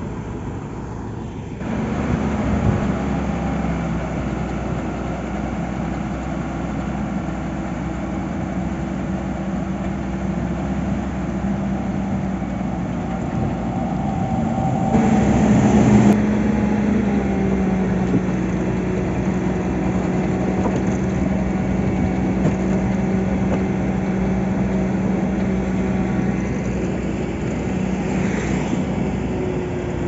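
Motor grader's diesel engine running steadily while its blade levels the soil subgrade. It gets louder about halfway through as the machine comes close.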